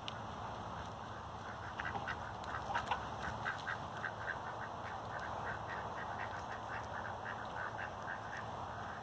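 Duck quacking in a long, rapid series of short calls, about three or four a second, starting a second or two in and stopping just before the end.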